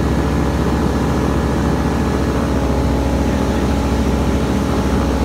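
A light single-engine propeller plane's engine and propeller drone steadily inside the cockpit as the plane floats low over the runway to land.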